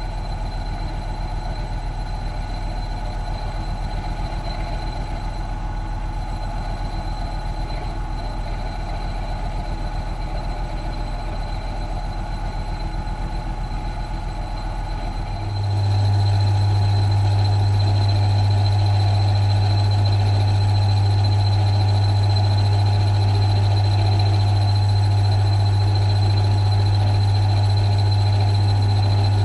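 Mill-drill running steadily while opening out a hole in the casting, with a strong electric-motor hum and a thin high whine. About fifteen seconds in, the hum steps up and everything grows louder.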